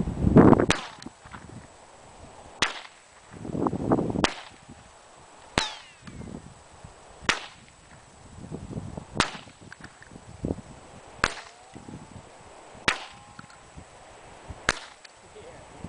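A Mossberg .22 rifle fired nine times in slow succession, one sharp crack about every one and a half to two seconds, knocking over the small targets.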